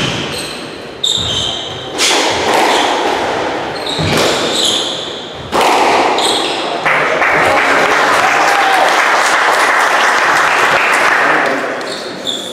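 Squash ball strikes and wall hits echoing around a squash court, with shoes squeaking on the hardwood floor. About halfway through the rally ends, and a steady crowd noise of applause follows for about five seconds.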